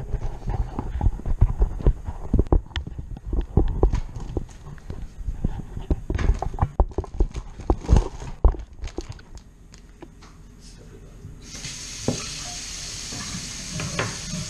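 Close knocking and rubbing of the camera being handled and set down on a counter, with many sharp thumps. About two-thirds of the way through, a kitchen tap is turned on and water runs steadily into the sink.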